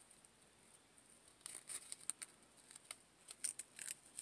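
Faint rustling and crinkling of a fabric rose and glittery artificial leaves being handled and pressed together, a run of short crisp ticks starting about a second and a half in.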